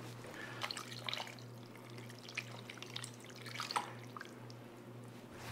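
Marinade trickling and dripping from a glass measuring cup onto a roast in a slow cooker crock, faint, with a few small splashes and ticks.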